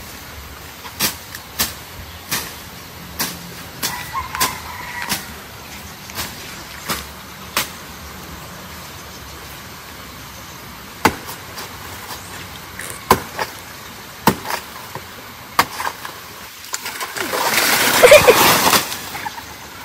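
Irregular sharp chops into the soft trunk of a saba banana plant, about one every second or so, then near the end the plant falls with a loud rush of swishing leaves.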